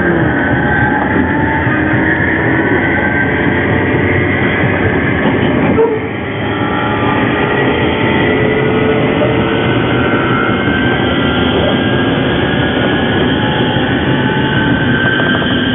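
JNR 201 series electric train running, heard from aboard, its traction motors giving off a screeching, multi-toned whine like an old nose-suspended (tsurikake) drive, over the rumble of the running gear. The whine is abnormal for this train and suggests a traction motor in poor condition. About six seconds in the sound drops briefly with a click, then the whine builds again with some tones slowly rising.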